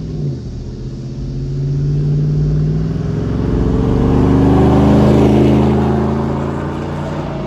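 Lifted pickup truck driving past, its engine note climbing as it accelerates. It is loudest about five seconds in as it goes by, then eases off.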